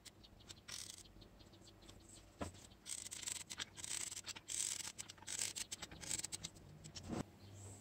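Faint irregular clicks and short scratchy hisses of a caulking gun squeezing out a bead of silicone onto a textured aluminium sheet, with a couple of soft knocks.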